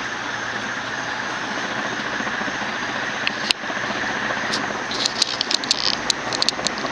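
TAT 56-inch industrial ceiling fan from around 1980, with a cast aluminum motor and aluminum blades, running on full speed while still slowly working up to speed: a steady rush of air from the blades over a low motor hum, with scattered light ticks, mostly in the second half.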